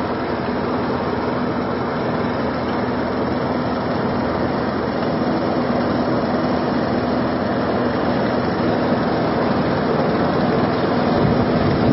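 Small engine of an amphibious rice thresher running steadily at a constant speed as the machine drives through a flooded rice paddy.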